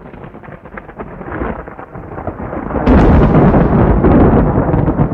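Rolling thunder rumbling, with scattered crackles at first, swelling loud about three seconds in.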